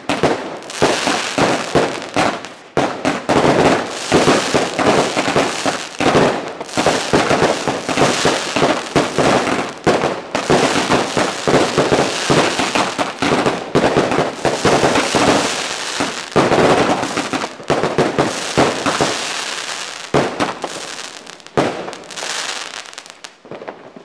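New Year's Eve fireworks going off in a dense, rapid string of bangs and crackles, thinning out and dying away near the end.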